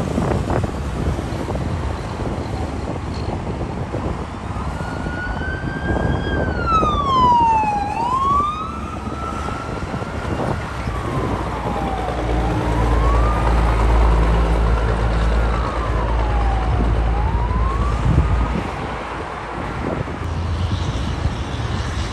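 Traffic with heavy diesel trucks passing, and an emergency-vehicle siren wailing, rising and falling in pitch, from about four seconds in until a few seconds before the end. A deep truck-engine drone comes up under the siren in its second half.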